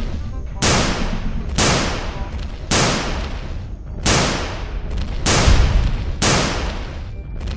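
Six gunshot sounds about a second apart, each a sharp crack with a hissing, ringing tail, over a steady low rumble.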